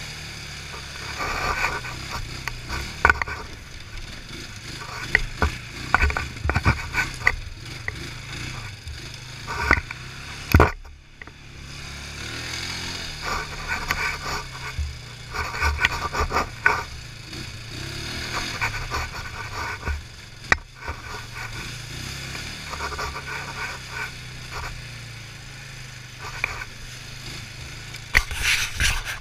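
ATV engine running at trail speed, under repeated sharp knocks, rattles and scrapes as the quad jolts over ruts and rocks on a rough dirt trail.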